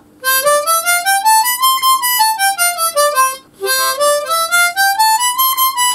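Tombo Major Boy 1710 ten-hole diatonic harmonica played one clean note at a time, running up a scale about an octave and back down, then starting the run again after a short breath. It is played as a test of reed response in the middle register, where the reeds answer quickly.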